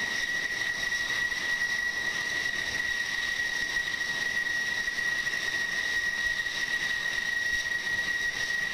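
F-16 Fighting Falcon jet engines at taxi power, giving a steady high-pitched turbine whine over a soft rush of exhaust.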